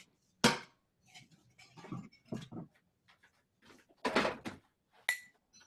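Scattered handling noise of knocks, bumps and rustles, with a sharp knock about half a second in and a longer rustle around four seconds in.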